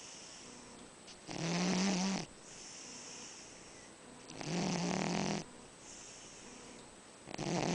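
A sleeping cat snoring: three snores about three seconds apart, each about a second long with a low steady buzz, the last starting near the end, with softer breath noise between them.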